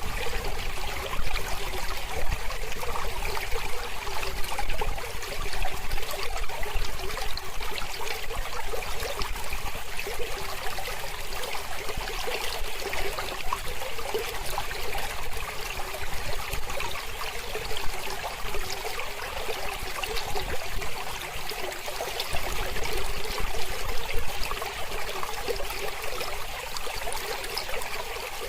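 Mountain river flowing steadily, a constant rush of water.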